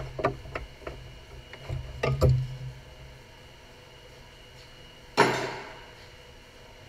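Clicks and knocks of an engine-bay cable and clamp being handled and pulled free, with a cluster of thuds about two seconds in and a louder clatter just after five seconds that dies away over about a second.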